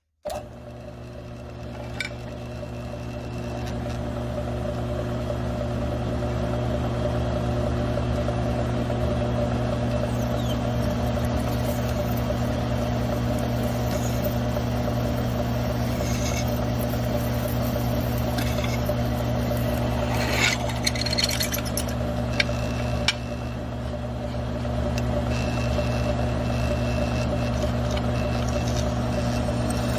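Grizzly G9972Z mill-drill running, its twist drill boring into a metal plate: a steady motor hum that grows over the first few seconds, with cutting scrape and a few sharp clicks about two-thirds of the way in.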